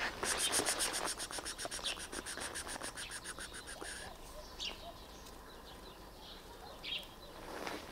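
Small bird calling: a rapid, evenly pulsed high trill for about the first four seconds, then a couple of short chirps.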